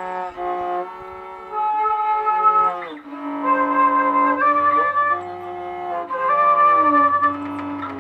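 Flute playing long held notes that step from pitch to pitch in a slow improvised line. A low steady drone comes in underneath about halfway through.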